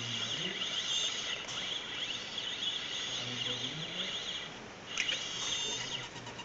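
Electric motors of a robotic head whining as the neck tilts and the eyes move: a high chirping whine that darts up and down in pitch in quick glides over a low motor hum. It stops briefly about two-thirds of the way through, then starts again.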